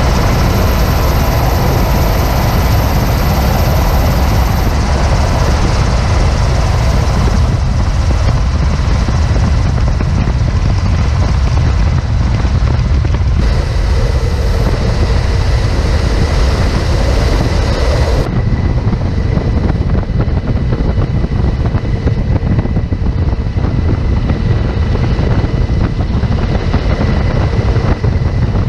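Steady, loud aircraft engine drone, heaviest in the low end. Its character changes abruptly three times, at roughly 7, 13 and 18 seconds.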